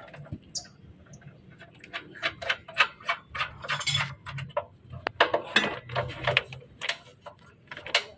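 Irregular metallic clicks and clinks of hand tools and fittings being handled on a truck's air dryer lines, sparse at first and busier and louder from about two seconds in.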